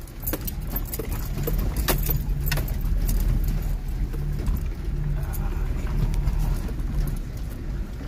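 Car moving along a rough dirt forest track: a steady low rumble of engine and tyres, with scattered clicks and rattles from the jolting. Heard from inside the car.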